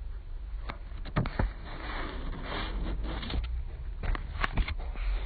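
Several sharp clicks, a pair about a second in and a cluster near the end, with a stretch of soft rustling between them, over a low steady hum.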